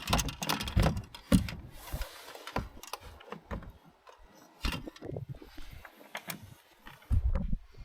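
Hand work on a boat's remote throttle/shift control box: irregular metallic clicks and clinks of small bolts and parts being handled and started by hand, with heavier knocks of the housing about a second in and near the end.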